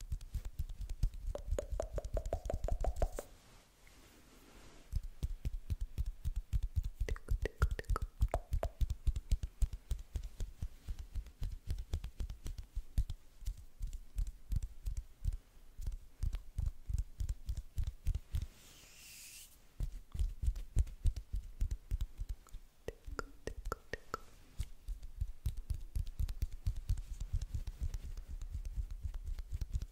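Close-miked ASMR hand sounds: palms and fingers rubbing and patting together right at a condenser microphone, making a fast run of soft pops and thumps with a short pause a few seconds in. A brief hiss comes about two-thirds of the way through.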